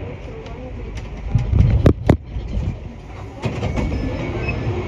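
MP14 rubber-tyred metro train running through a tunnel, heard from aboard: a steady low rumble that swells about a second and a half in, with two sharp clacks in quick succession about two seconds in.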